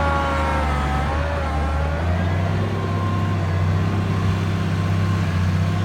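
Case IH 8920 tractor's six-cylinder diesel engine running, with a whine that falls in pitch over the first two seconds as the engine settles into steady running.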